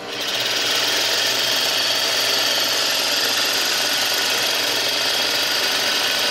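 Industrial straight-stitch sewing machine running with its bobbin winder spinning to fill a bobbin with thread. It comes up to speed in the first half second, then runs steadily.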